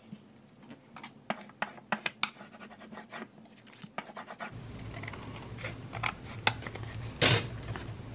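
Scissors cutting through paper: a quick run of sharp snips, then scratchy paper handling and rustling, with one louder crinkle near the end.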